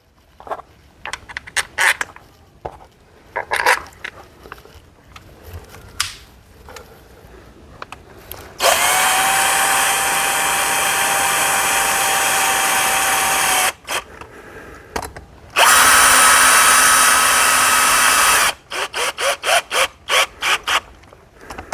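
Power drill-driver running in the bolts of a chainsaw's cylinder base. After light handling clicks it makes two steady runs, about five and three seconds long, the first briefly rising in pitch as it spins up. Then comes a quick string of short trigger bursts near the end.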